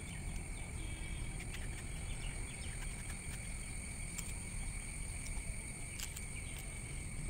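Outdoor ambience: a steady insect drone in two high tones over a low rumble, with a few faint clicks from a small knife scoring the skin of a raw green mango.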